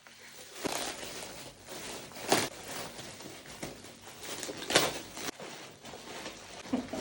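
Packaging rustling and rattling as a gift is unwrapped by hand, with a few sharp clicks or snaps, the loudest about two and a half and five seconds in.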